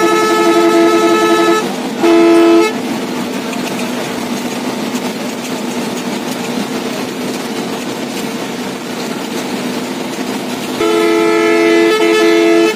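Loud two-note bus horn sounding in a long blast, then a short toot about two seconds in, heard from inside the cab of a Bangladeshi local bus. Between them the bus's engine and road noise run steadily, and near the end the horn sounds again in another long blast.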